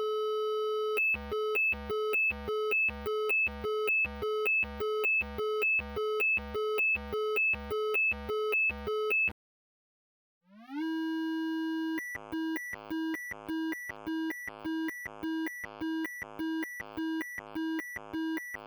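Synthesized electronic alarm tone. A tone slides up in pitch and holds for about a second, then pulses in beeps about twice a second. It stops about halfway through, and after a short gap a second, lower alarm slides up, holds and beeps a little faster.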